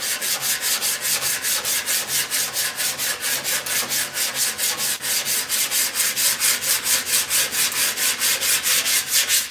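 Sandpaper on a hand sanding block scrubbing over a primed sheet-metal VW Beetle fender in quick, even back-and-forth strokes. The block sands the black primer off the hammered area, so that high spots show as bare patches.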